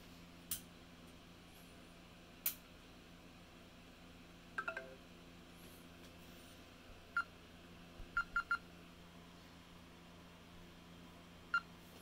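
A TCL LX smartphone's on-screen keyboard making key-press click sounds through its speaker: short, high blips, some single and one quick run of three, with one slightly different, lower-pitched cluster. Two sharper taps come in the first few seconds.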